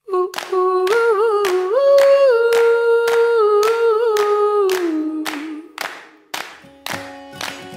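Background music: a wordless hummed or sung melody over steady claps, about two a second. Near the end the voice fades out and lower instrumental notes come in.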